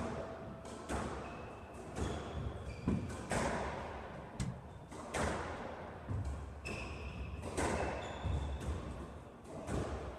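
Squash rally: the ball cracking off racquets and thudding against the court walls about once a second, with short squeaks from shoes on the court floor between the shots.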